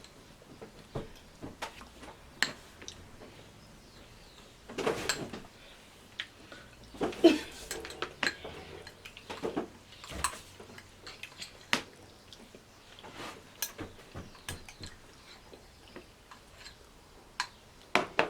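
Cutlery clinking and scraping against dishes while cake and cream are eaten: scattered sharp clicks, with two louder, longer scrapes or noises about five and seven seconds in.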